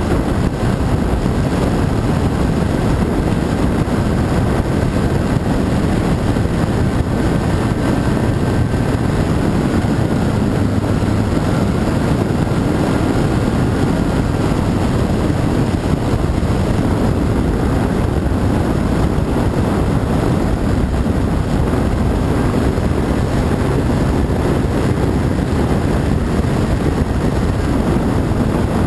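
Radio-controlled model airplane in flight, its motor a faint high whine that dips in pitch about midway, under a loud, steady low rumble.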